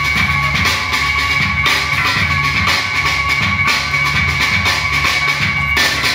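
Breakbeat music played for breakdancing, with a steady drum-kit beat of kick and snare and a held high note that drops out near the end.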